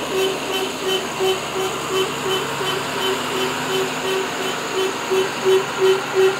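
Tata tipper truck's reversing alarm beeping on one steady note, about three beeps a second, over the diesel engine running.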